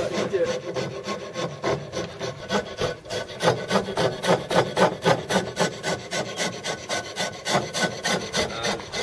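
Hand file rasping on a knife's handle clamped in a bench vise, in quick regular back-and-forth strokes, a few a second, shaping the handle after the epoxy has set.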